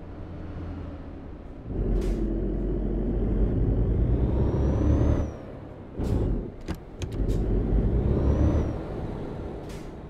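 Car engine and road noise while driving. The engine grows louder as the car accelerates about two seconds in, drops off briefly around five seconds, surges again twice, then eases near the end. A few sharp clicks are heard along the way.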